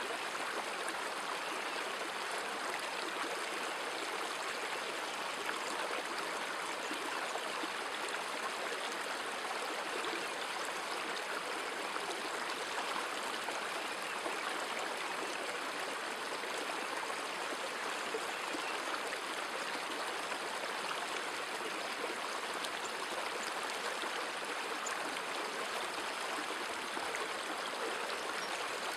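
River water running steadily, an even rushing with no break or change in level.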